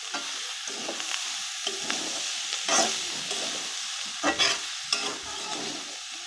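Chopped onion stalks and diced potato sizzling in a metal karahi while a metal spatula stirs and scrapes against the pan, with a few louder scrapes around the middle.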